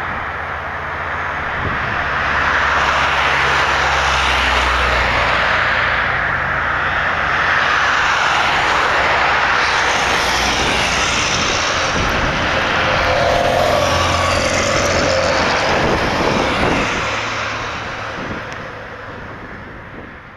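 A fixed-wing aircraft's engines passing close by in a loud, steady rush that swells about two seconds in and fades away over the last few seconds.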